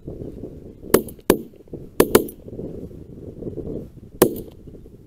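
Volley of shotgun shots from several hunters firing at geese: two shots about a second in, a quick pair a second later, and one more near the end, over low wind rumble on the microphone.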